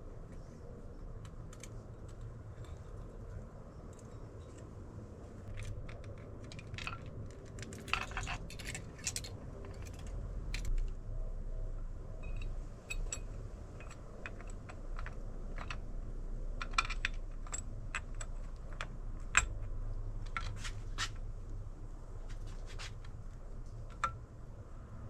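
Irregular light metallic clicks and clinks of hand tools and small metal parts being handled during a motorcycle engine rebuild, over a low steady hum.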